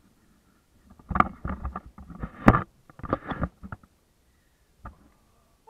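Bath water sloshing and splashing in a tub in a few irregular bursts as a person in a soaked coat moves about, with a short last splash near the end.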